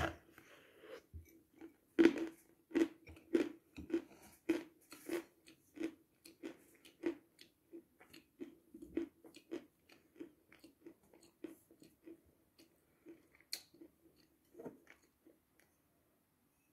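Dry chalk being bitten and chewed close to the microphone: a loud crunch at the bite, then crisp crunchy chewing strokes one or two a second that grow fainter and die away near the end. A faint steady hum runs underneath.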